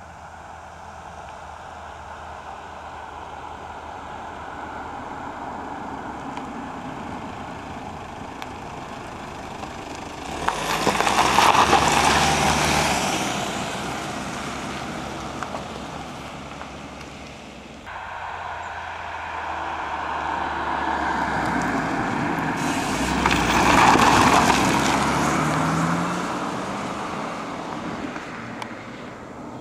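Cars driving past one at a time, two close pass-bys about 11 and 24 seconds in. Each swells quickly with engine and road noise, then fades as the car moves away. The sound changes abruptly between the two.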